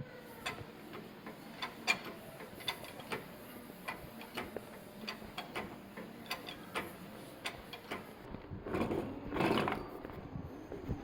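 Irregular light metallic clicks and taps from mechanic's work on a Suzuki Spacia's rear wheel bearing, with a louder scraping noise lasting about a second and a half near the end.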